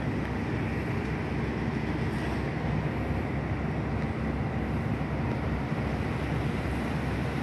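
Steady low rumble with a faint constant hum: the open-deck noise of a cruise ship as it docks. No single event stands out.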